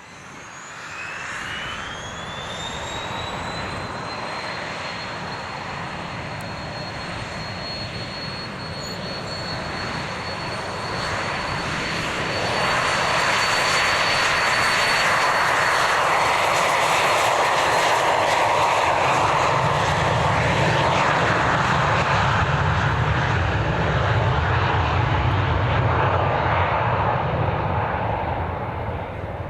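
Pilatus PC-24 business jet taking off on its twin Williams FJ44 turbofans. A whine rises in pitch over the first few seconds as the engines spool up to takeoff power, then holds steady over the jet roar. The roar grows louder about twelve seconds in, stays loud, and fades slightly near the end.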